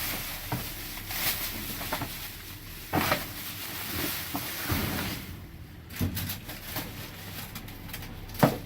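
Irregular knocks, clunks and rustling of boxes and discarded items being shifted and handled while rummaging through a dumpster, with the sharpest knocks about three seconds in and near the end.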